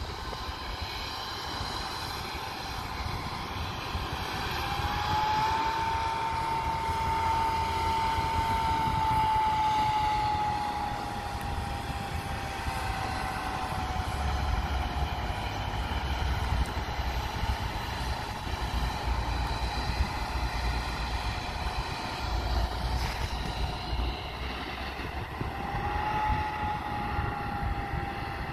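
Trenord articulated multiple unit running slowly past, a steady low rumble with a whine that rises about five seconds in, slowly sinks over the next several seconds, and rises again near the end.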